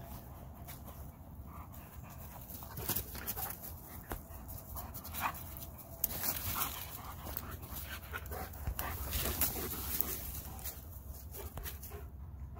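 German shepherd panting from exertion as it runs, with repeated crunching footsteps through dry fallen leaves.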